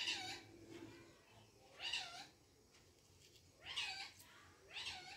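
A cat meowing four times, short calls a second or two apart, each rising and then falling in pitch.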